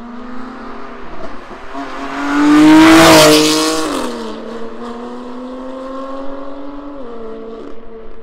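BMW F80 M3 Competition's twin-turbo S55 straight-six, fitted with a non-resonated midpipe and an M Performance exhaust, accelerating past. The exhaust note rises in pitch and is loudest as the car goes by about three seconds in, then drops in pitch and fades as it drives away, stepping down in pitch again near the end.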